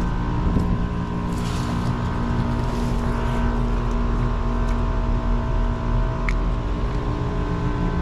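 Air-conditioning condensing unit running, its compressor and fan giving a steady hum with several steady tones. Two short bursts of hiss come about one and a half and three seconds in, and a single sharp click a little past six seconds.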